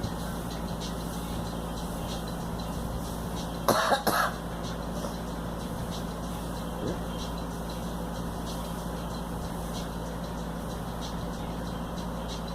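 A girl coughing twice in quick succession, about four seconds in, over a steady low hum.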